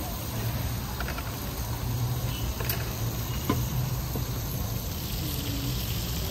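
Meat and potatoes frying in oil in a large wok-style pan, a steady sizzling hiss, over a low steady rumble with a few light clicks.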